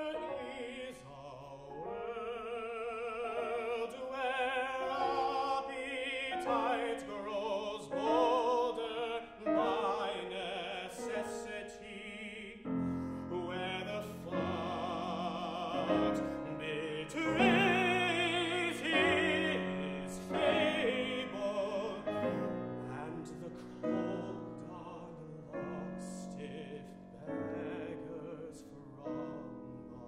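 Solo tenor singing a classical art song with vibrato, accompanied by grand piano; deeper piano notes join about halfway through.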